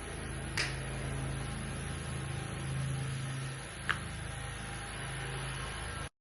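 A steady low mechanical hum, with two short clicks, one about half a second in and one near four seconds.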